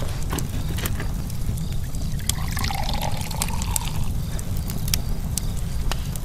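Open fire burning with scattered sharp crackles and pops over a steady low rumble. A brief rushing sound rises and falls between about two and four seconds in.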